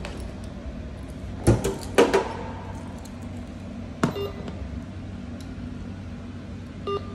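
Full Time System parcel locker's touchscreen panel giving a short beep near the end as it is tapped, over a steady low hum. Two sharp clacks come about a second and a half and two seconds in, and another about four seconds in.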